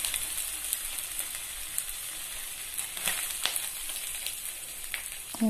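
Finely chopped ginger and garlic sizzling in hot oil in a clay kadai, a steady frying hiss with scattered small crackles.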